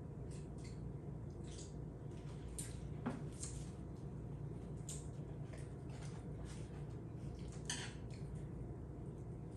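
Eating sounds: chewing and wet mouth clicks while eating a sauced burger, irregular short sharp clicks over a steady low hum.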